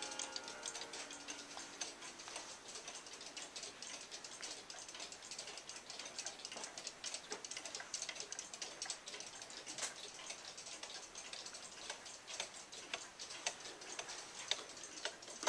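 Several mechanical pendulum cuckoo clocks ticking together out of step, a dense, uneven patter of faint ticks. A faint ringing from an earlier chime dies away in the first two seconds.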